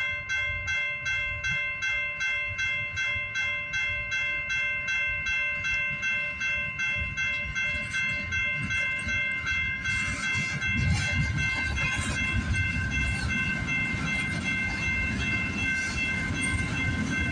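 Railroad crossing bell ringing steadily, about two strokes a second. About ten seconds in, a CPKC freight train reaches the crossing and passes over it, its locomotives and cars rumbling and clattering under the bell.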